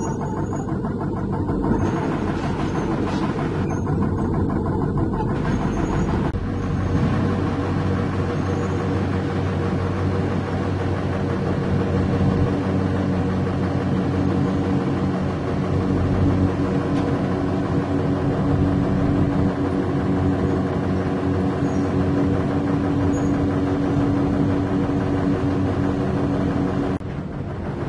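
Heavy diesel engine idling steadily.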